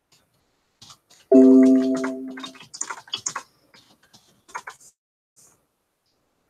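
A single loud electronic chime note that starts abruptly about a second in and fades away, followed by a run of light clicks and taps.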